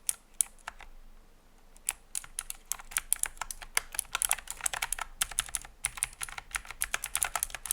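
Clicky blue-switch mechanical keyboard being typed on: a few single key presses, then from about two seconds in fast, uneven runs of sharp clicks.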